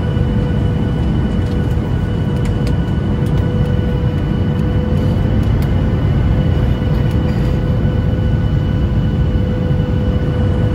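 Steady cabin noise inside a Boeing 737-800: the rush of its CFM56-7B jet engines and airflow, a deep rumble with a constant mid-pitched whine over it.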